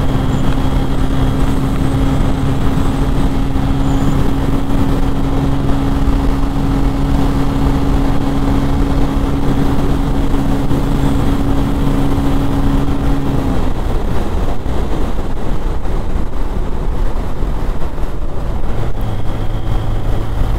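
Single-cylinder engine of a Bajaj Pulsar 135 LS running steadily at highway cruising speed, around 100 km/h, under a heavy, even rush of wind on the microphone. About two-thirds of the way through, the steady engine tone drops away and the wind noise carries on.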